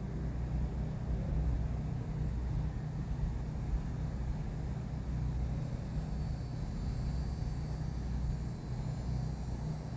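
Steady low rumble of a car driving slowly, heard from inside the cabin: engine and road noise. A faint high whine comes in about two-thirds of the way through.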